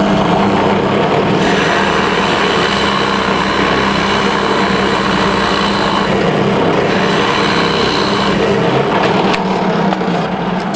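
Bench drill press running, its bit boring a 5/8-inch hole through a wooden board: a steady motor hum, with the noise of the bit cutting into the wood from about a second and a half in until near the end.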